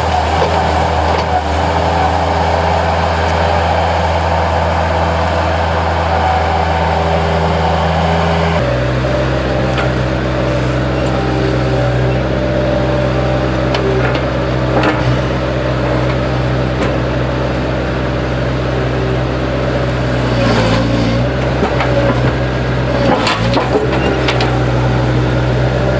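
Skid loader engine running steadily, its engine note shifting abruptly about nine seconds in. Several sharp cracks and snaps are heard over it later on.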